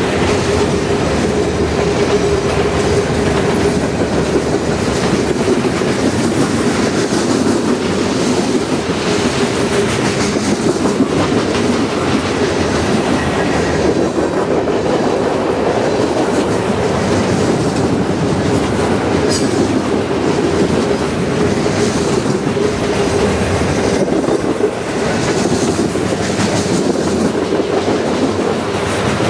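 CN freight train's cars rolling past at speed, wheels clattering over the rail joints, with a steady tone underneath.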